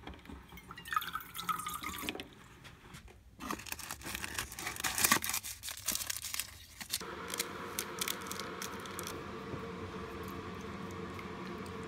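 Water running from the tap of a plastic water dispenser, then packets and wrappers rustled and crinkled on a pantry shelf. A steady hum comes in about seven seconds in.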